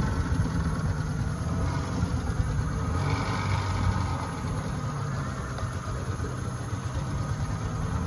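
Motor of a small river boat running steadily at low speed, pushing the boat along.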